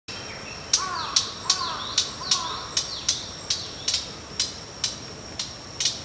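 Oriental reed warbler giving its call notes: short, sharp calls repeated about two to three times a second, starting just under a second in.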